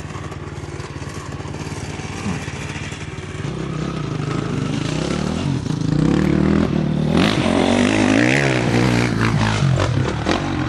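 Off-road vehicle's engine running, then revving harder and louder from about halfway through, its pitch rising and wavering.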